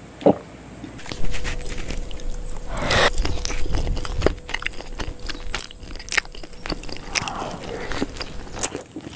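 Spicy schezwan noodles being slurped and chewed close to the microphone: a long slurp about three seconds in and another near the end, with wet chewing and mouth clicks between. A short thump near the start.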